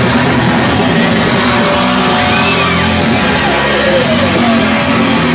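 Loud rock music playing steadily, with a full band of drums, bass and guitar.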